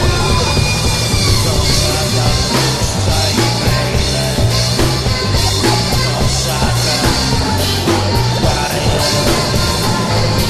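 Rock music from a full band: drum kit, bass and guitar playing steadily.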